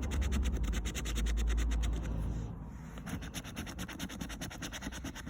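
Rapid scratching of a scratchcard's scratch-off coating, a quick run of short strokes. A low rumble sits under it for the first two and a half seconds.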